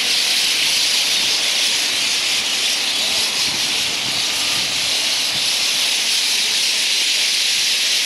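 A large flock of roosting birds calling all at once in and over a street tree, the many calls blurring into one steady, high chattering hiss.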